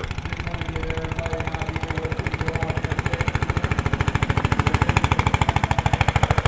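Single-cylinder Briggs & Stratton Model 23 four-stroke gasoline engine of a Mayrath Deluxe garden tractor running as the tractor drives along, with rapid, even exhaust beats that grow louder as it comes closer.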